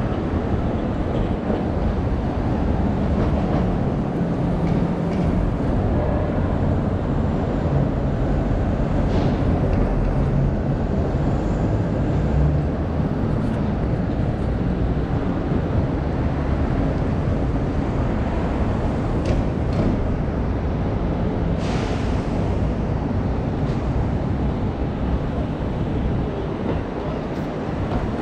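Steady low rumble of city street traffic, with a short hiss about three-quarters of the way through.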